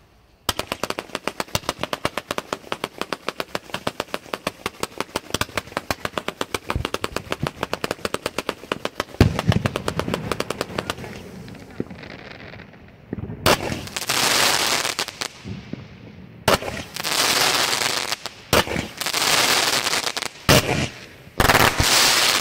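Neon Moon P5572 consumer fireworks firing: a rapid, even string of sharp shots, several a second, for about ten seconds. Then a few single louder shots, each followed by a second or two of dense crackling hiss.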